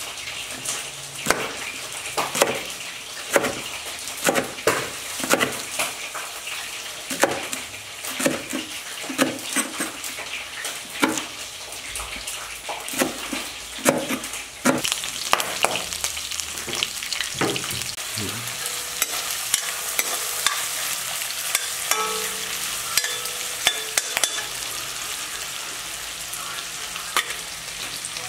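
A large knife chopping green onion stalks on a plastic cutting board, with sharp chopping strikes about one or two a second. About two-thirds of the way through the chopping stops and gives way to the steady sizzle of food frying in a pan.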